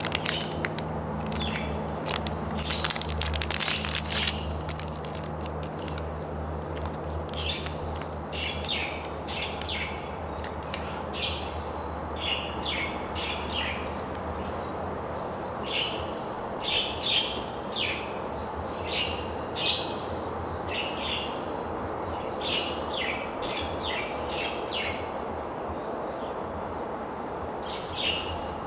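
A plastic snack wrapper crinkling loudly as it is handled and opened, about two to four seconds in. Small birds chirp in short, repeated calls through the rest, over a steady low background hum.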